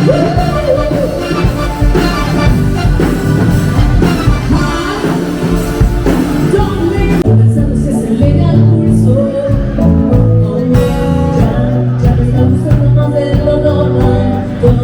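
Music with singing, over a steady beat and a guitar.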